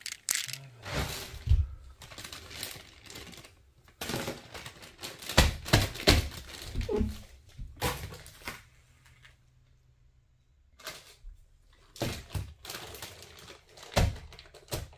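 A thin plastic bag of shelled ginkgo nuts crinkling and rustling as it is handled, filled and twisted shut, with the nuts clicking against each other. The sounds come in irregular bursts, with a pause about two-thirds of the way through.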